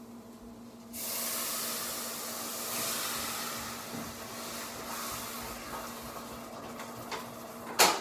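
Food or sauce hitting a hot pan: a loud sizzle starts suddenly about a second in and slowly dies down. A sharp knock comes near the end, over a steady low hum.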